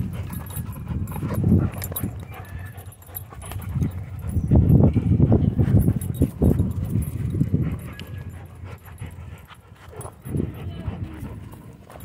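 German Shorthaired Pointer growling low in several bursts as it bites and pulls on a hanging rope tug toy. The loudest bursts come about four to five seconds in.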